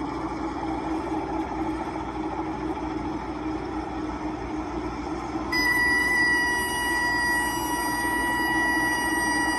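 Robinson helicopter's engine and rotor running steadily, heard inside the cabin; about five and a half seconds in the low rotor RPM warning horn comes on as a steady high tone and keeps sounding. It warns that rotor RPM is decaying as the helicopter settles with more power required than the engine has available.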